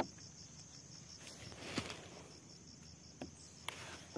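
Insects chirping steadily in a fast, even pulse. A sharp click at the start and a few faint clicks and rustles come from hands on the plastic cap of a backpack sprayer tank.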